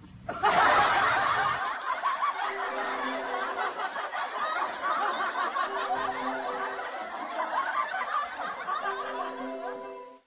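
Laughter over background music, added in the edit: it cuts in suddenly at the start and cuts off abruptly near the end.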